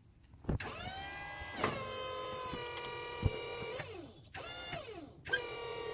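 A small electric motor, like a power drill's, spins up with a quick rising whine, runs at a steady high pitch for about three seconds, then winds down; it starts up again briefly near the end.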